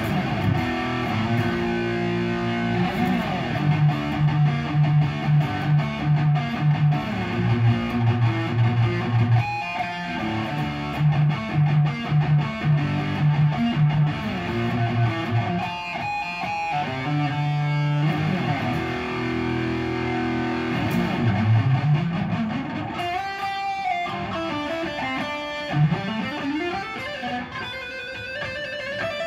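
Ibanez-style electric guitar, freshly rewired and set up, being played: chugging low rhythmic riffs, with quick higher runs in between. Near the end it moves to lead lines with notes gliding up and down in pitch.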